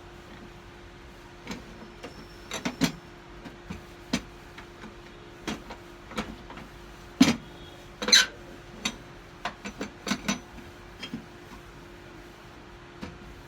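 Irregular clicks and knocks, a couple of dozen scattered through, the loudest a cluster about halfway, over a steady low hum.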